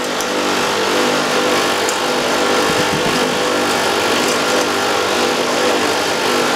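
Split air-conditioner outdoor unit running, its compressor and fan giving a steady hum with a broad hiss, during refrigerant recovery with the service valve being reopened. The sound gets a little louder at the start and then holds steady.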